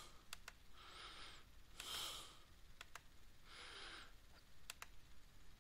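Near silence with three soft breaths close to the microphone and a few faint clicks, like a computer mouse.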